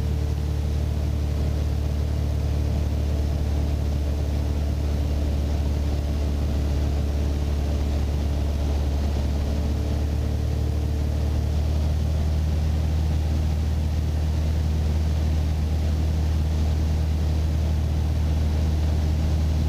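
Mooney's single piston engine and propeller droning steadily in the cockpit at approach power, with the propeller set full forward and the gear down. A fainter steady higher hum fades out a little past halfway.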